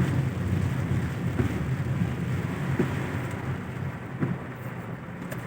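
Heavy rain falling steadily, with a low steady rumble beneath it.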